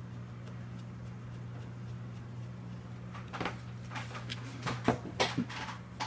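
Handling a metal laptop hard drive caddy and a small screwdriver: faint ticks as a caddy screw is turned, then a run of sharp clicks and clacks over the last three seconds, two of them loudest near the end. A steady low hum lies underneath.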